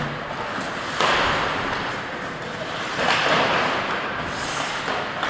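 Hockey skate blades scraping and carving across the rink ice, with two louder scrapes that start suddenly about one second and three seconds in.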